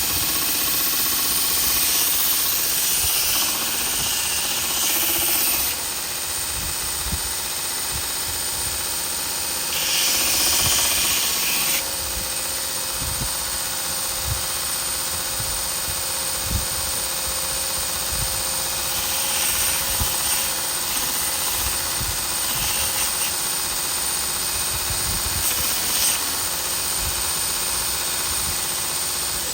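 Grizzly 2x42 belt grinder running steadily with a 120-grit belt, sanding wood, a constant motor-and-belt hiss. The hiss turns brighter in a few stretches, around two to five seconds in and again around ten to twelve seconds in, as the wood is pressed to the belt.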